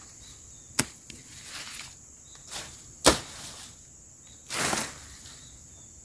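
Machete chopping weeds among chili plants: two sharp strikes about two seconds apart and a softer one between them, then a brief swish of cut vegetation about four and a half seconds in. A steady high insect drone runs underneath.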